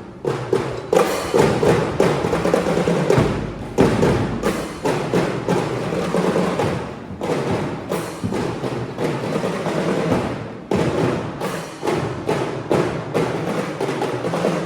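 Background music with a steady, percussive beat.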